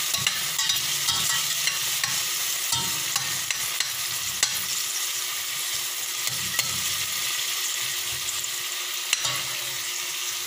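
Diced garlic, onion and tomato sizzling in oil in a stainless steel pot, with a metal ladle scraping the bottom as it stirs and now and then clinking against the pot.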